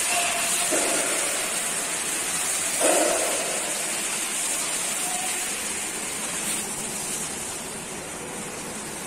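Steady rush of running water in an indoor thermal pool hall, with a brief louder sound about three seconds in.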